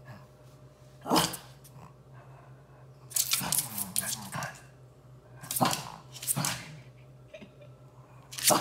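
Two shih tzus squabbling: short sharp barks and growls in several bursts, a longer run of them in the middle.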